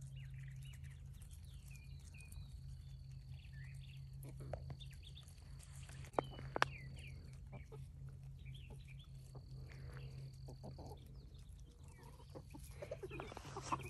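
Chickens clucking softly and intermittently as they peck and forage, over a steady low hum, with a couple of sharp clicks about halfway through.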